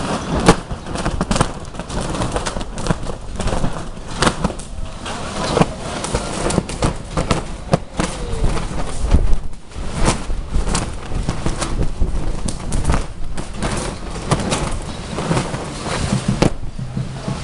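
Strong storm wind buffeting the microphone, with a tarp flapping and snapping in the gusts: many sharp, irregular cracks over a steady rumble.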